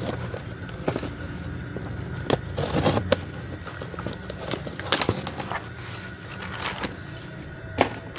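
Cardboard shipping box being cut open and handled with a knife: irregular scrapes, crackles and clicks of cardboard and packing tape, over a steady low background hum. Near the end a plastic bag of parts rustles as it is lifted out.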